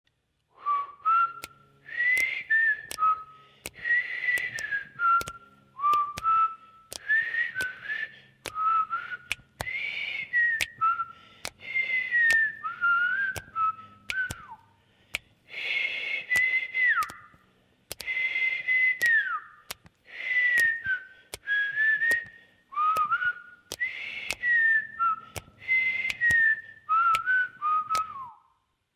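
A person whistling a tune in short phrases, sliding up and down between notes, with sharp clicks scattered through it. It stops near the end.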